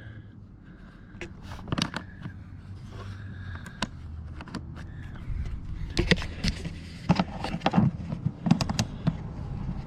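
Scattered sharp clicks and light knocks of hands working at a stopped Ryobi inverter generator's controls and choke linkage, several in quick succession between about six and nine seconds in, over a faint low steady hum.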